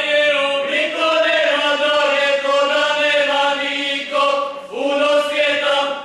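A group of voices singing a Croatian folk song in long held notes, with brief breaks between phrases about a second in and again near the end.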